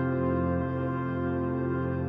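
Background music: soft ambient keyboard chords held steadily.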